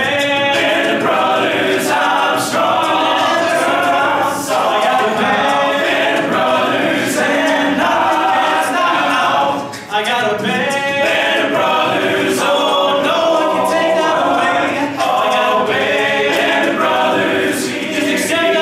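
All-male a cappella group singing in close harmony, a full wall of voices with a sharp clicking beat running through it. The sound dips briefly about ten seconds in.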